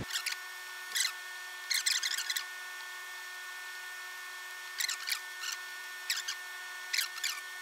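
Hand sewing on a mink fur coat: needle and thread drawn through the fur and lining in short scratchy strokes, coming in a few groups with a pause in the middle, over a faint steady hum.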